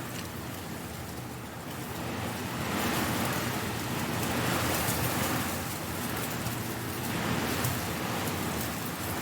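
Strong wind rustling dry leaves, swelling in several gusts, with a light crackle of leaves on top.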